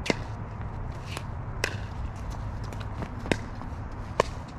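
Pickleball paddles hitting a plastic pickleball during a rally: sharp pops at uneven intervals, the loudest about four seconds in.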